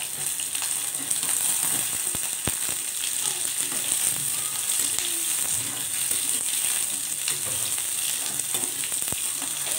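Chopped onions sizzling steadily in a spoonful of hot oil in a kadhai as they are stirred with a spatula, lightly frying for a gravy paste, with a couple of sharp taps of the spatula on the pan.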